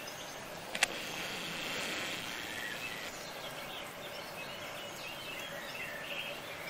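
Steady outdoor garden background hiss with faint bird chirps, and a single sharp click about a second in.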